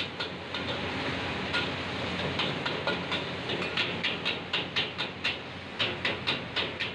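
Mee goreng frying in a steel wok over a high gas flame: a steady hiss and sizzle, with quick repeated clanks and scrapes of a metal ladle and spatula against the wok, busier in the second half.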